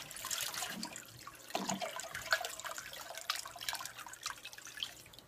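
Salt water poured into an aquarium, splashing and trickling with scattered sharp drips as the tank is topped up to full.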